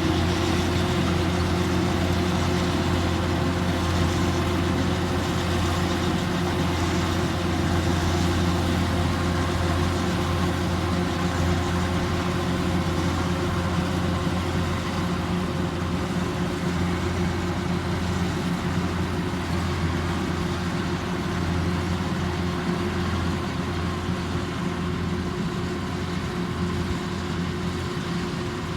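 Kubota rice combine harvester's engine running steadily with a constant low drone, slightly quieter toward the end.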